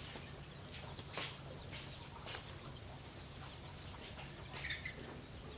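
Rabbit chewing its food: a few short, crisp crunches spaced irregularly over a steady low hum.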